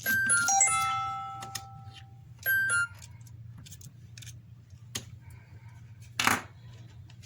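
A bright chime of several bell-like notes at the start, ringing out over about two seconds, and a shorter two-note chime about two and a half seconds in. Light clicks and a brief rustle near the end, over a low steady hum.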